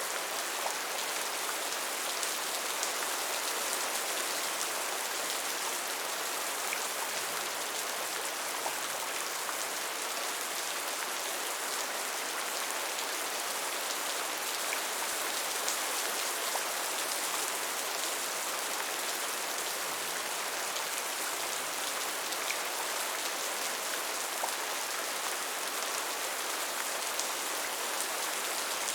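Steady rain falling, a dense even hiss of drops with occasional individual drop ticks.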